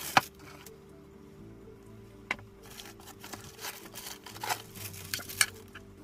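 Packaging being handled during an unboxing: a sharp knock right at the start, then irregular crinkling and clicking of wrapping and cardboard, densest in the second half. Quiet background music plays underneath.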